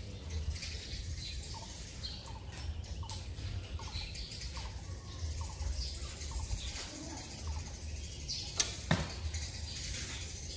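A shot from a traditional bow: near the end, the string is loosed with a sharp crack, and a second crack follows a fraction of a second later.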